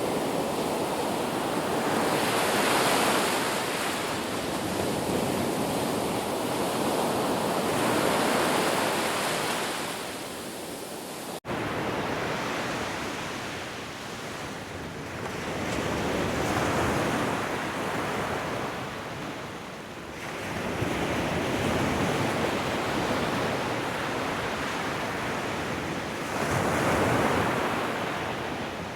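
Ocean surf: waves swell and wash back in turn, roughly every five seconds, as a steady rushing noise. About eleven seconds in there is a momentary dropout.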